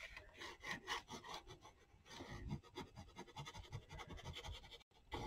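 Faint, irregular rustling and scratching of paper being handled, with small soft taps.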